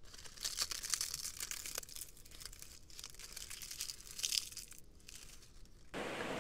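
Faint, irregular crunching and rustling of footsteps on a stony riverbank, with scattered small clicks. About six seconds in it gives way to a louder steady hiss.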